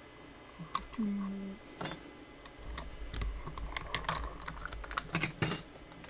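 Small metal objects clinking and clattering as they are handled on a desk, with scattered sharp clicks and two loud clacks close together near the end.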